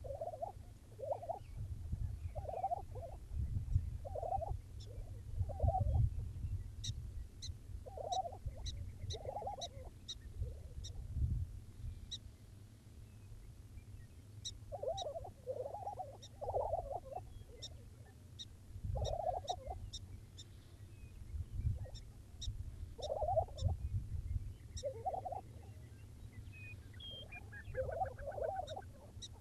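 Displaying male lesser prairie-chickens calling on their lek: short bubbling, gobble-like calls, repeated every second or so and sometimes in quick groups of two or three. Runs of sharp high clicks come between the calls, with a low rumble underneath.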